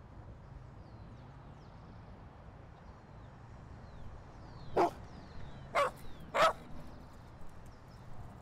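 A dog barking three times in quick succession over faint outdoor background.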